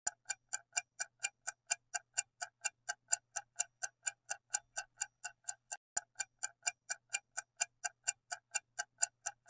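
Clock ticking sound effect counting down the answer time in a quiz: even, sharp ticks at about four a second.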